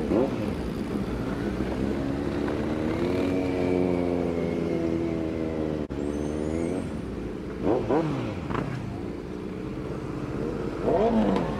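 Kawasaki Z900's inline-four engine accelerating as the bike rides off, revving up and dropping back at gear changes near the start, at about eight seconds and near the end. In between is a steadier stretch of slowly climbing revs.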